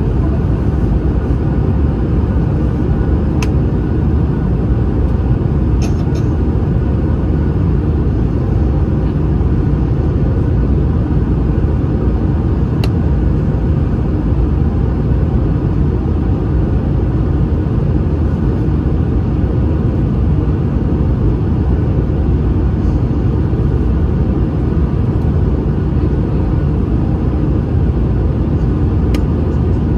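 Steady low rumble of engine and airflow inside the cabin of an Airbus A220-300 descending on approach, its Pratt & Whitney PW1500G geared turbofans running. A few faint clicks come through now and then.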